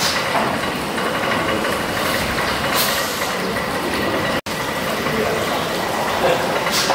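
1904 Glenfield & Kennedy Woolf compound rotative beam engine running steadily, with a short hiss about three seconds in and again near the end.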